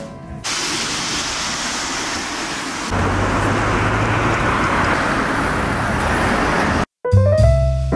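City street traffic noise: a steady hiss of cars on the road, with a low engine rumble joining about three seconds in. It cuts off near the end, and background music with piano comes in.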